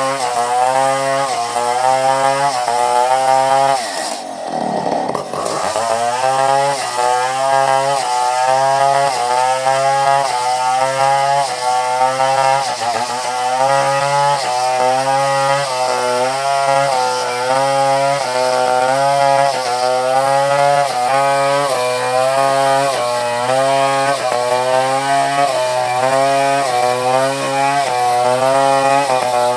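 Two-stroke chainsaw cutting coconut wood under load, its engine pitch wavering up and down about twice a second. About four seconds in it drops briefly toward idle, then revs back up and carries on cutting.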